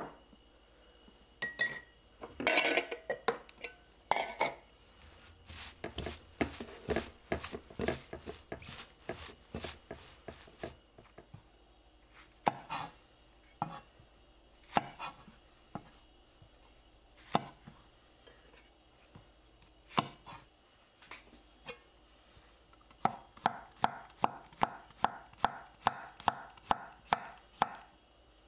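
A spoon mixing chopped cabbage and chives in a glass bowl, with clinks and scraping. This is followed by scattered knife taps on a wooden cutting board. Near the end come quick, even knife strokes, about two and a half a second, as shiitake mushrooms are sliced on the board.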